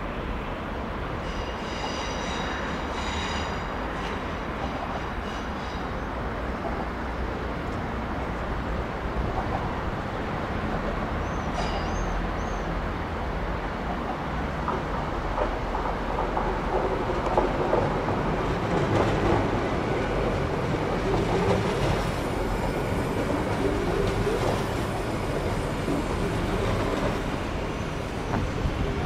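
A train rolling along the track, growing louder from about halfway through. About two seconds in there is a brief high-pitched wheel squeal.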